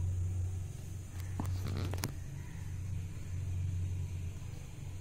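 Cats purring close to the microphone: a steady low hum that pauses briefly every second or so. A short rustle with a few clicks comes about a second and a half in.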